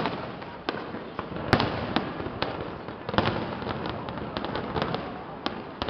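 Aerial fireworks shells bursting: a run of sharp, irregularly spaced bangs and crackles, the loudest about a second and a half in, over a continuous noisy background.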